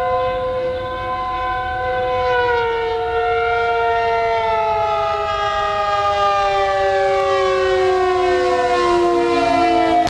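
Dive-bomber siren on a radio-controlled model aircraft wailing: a chord of several tones held steady for about two seconds, then sliding slowly and smoothly down in pitch.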